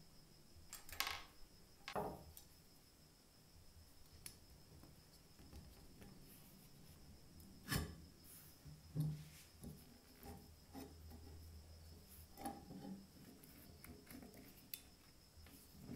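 Scattered small metal clicks and taps as a coil spring, washer and steel shaft are fitted into the cast-iron frame of a hand tile cutter during reassembly; the sharpest clicks come about 1, 2 and 8 seconds in.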